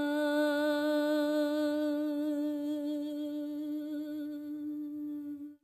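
A singer holds one long note with vibrato, a drawn-out vowel in a Persian song. The note weakens slightly and then stops abruptly right at the end.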